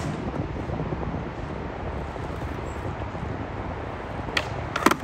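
Skateboard wheels rolling on rough concrete, a steady low rumble. A sharp clack right at the start, and two or three more near the end as the board's tail snaps down for a trick.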